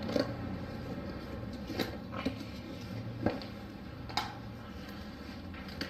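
Scattered light clicks and knocks, about six of them, as parts and packaging from a head gasket kit are handled, over a steady low hum.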